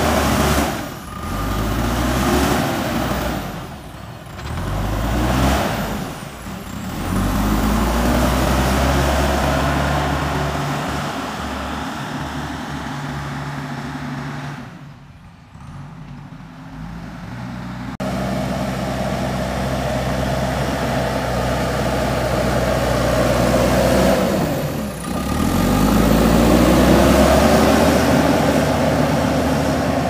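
JCB 3DX backhoe loader's diesel engine running under load as the machine pushes and carries soil with its front bucket. The engine note drops and picks up again several times.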